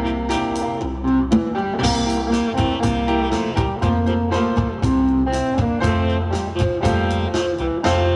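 Live instrumental band music from a combo of saxophone, keyboard, drum kit, guitar and bass guitar, playing over a steady drum beat.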